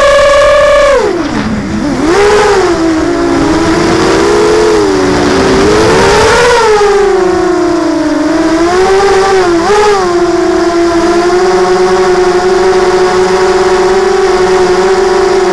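Whine of a ZMR250 quadcopter's DYS 1806 brushless motors spinning Gemfan 5040 propellers, its pitch rising and falling with the throttle. The pitch drops sharply about a second in, swings up and down through the middle, then holds nearly steady in the second half.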